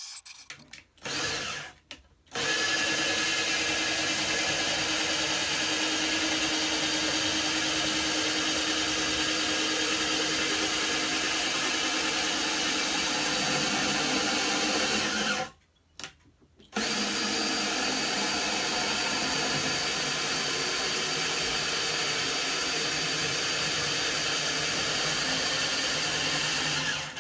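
Makita M585 190 mm circular saw, mounted in a homemade table-saw frame, running free at a steady speed without cutting. It gives two short bursts at the start, then runs steadily, stops for about a second around the middle, and runs steadily again.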